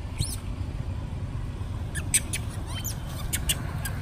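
Young long-tailed macaque giving short, high-pitched squeaks, once just after the start and several more near the middle, with a few sharp clicks among them, over a steady low rumble.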